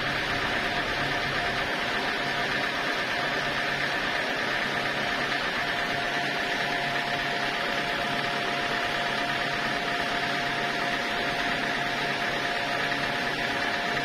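Homemade band sawmill running steadily between cuts, not cutting: a constant machine hum and whine over a steady hiss.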